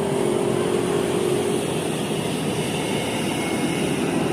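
Bus engine running as the bus manoeuvres, a steady hum with a held tone in the first half.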